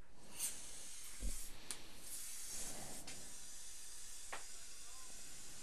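A steady hiss from dental equipment that builds up over the first second or two, with a soft thump about a second in and a few faint clicks.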